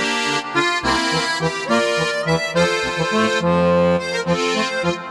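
Instrumental background music with a steady run of bass notes under a melody.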